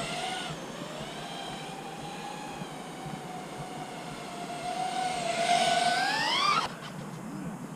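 3-inch FPV quadcopter (Eachine LAL3) with brushless motors and propellers whining at a steady pitch. About five seconds in, the whine grows louder and rises in pitch as the motors speed up, then it stops abruptly.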